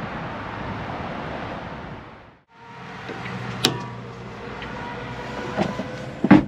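Steady outdoor noise haze, then after a short break a steady hum in a motorhome kitchen. A few sharp clicks follow, and a loud clack near the end as the kitchen fittings are handled.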